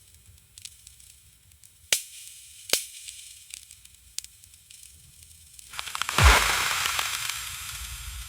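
Ice-laden tree branches cracking in an ice storm: scattered small ticks and two sharp, loud cracks, then about six seconds in a heavy crack followed by a long hissing rush, like ice and branches breaking and falling, that slowly fades.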